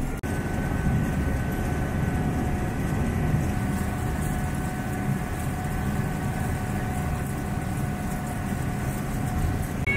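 Engine of a WWII-era DUKW amphibious duck boat running steadily under way in the water, heard from on board: a low, even rumble with a faint steady whine above it. There is a momentary break just after the start.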